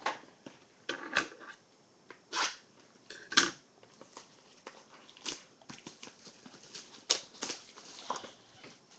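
Hands opening a small cardboard trading-card box and handling the packs: irregular crinkles, scrapes and taps of cardboard and wrapper, the sharpest snap about three and a half seconds in.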